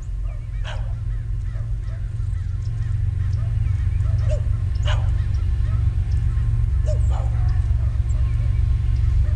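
Low rumble of an approaching freight train's diesel locomotive, a GE ES44AC, growing louder. Three short animal calls sound over it, about a second in, in the middle and near the end.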